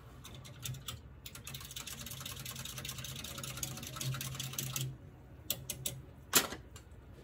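A small paint-mixing whisk being swished in a cup of water to rinse it, a rapid clicking rattle lasting a few seconds. It is followed by a few light clicks and one sharp knock near the end.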